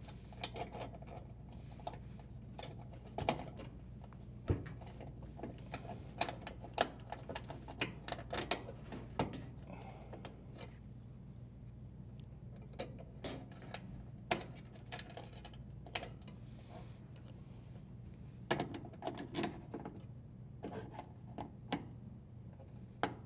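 Scattered light clicks, taps and rubbing of metal and wire being handled: a strain relief nut threaded onto the cord at a dishwasher's metal junction box and turned with a flathead screwdriver.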